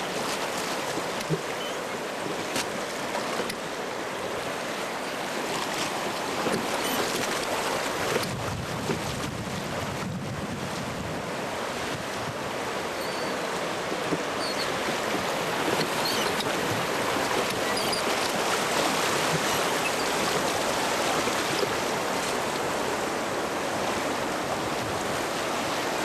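Rushing river water around a raft, a steady churning wash with wind buffeting the microphone. It grows somewhat louder about halfway through.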